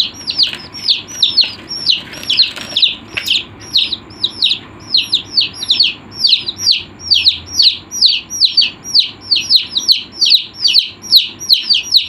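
A group of chicks peeping: short, high, down-slurred peeps repeated several times a second and overlapping, growing denser toward the end.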